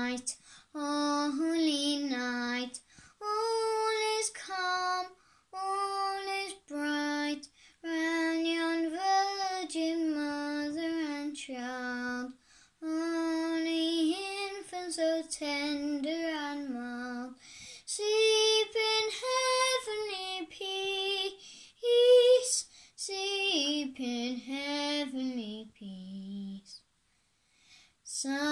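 A young boy singing a song solo and unaccompanied, in short phrases with breaths between them, falling quiet for about a second and a half near the end before starting the next phrase.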